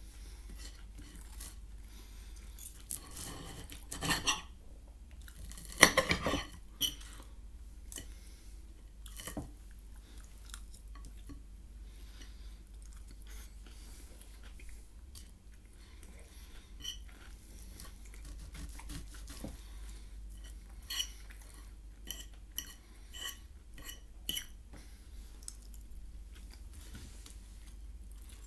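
Cutlery scraping and clinking on a plate, with chewing in between. The loudest scrapes come about four and six seconds in, and a run of light ringing clinks a little past twenty seconds.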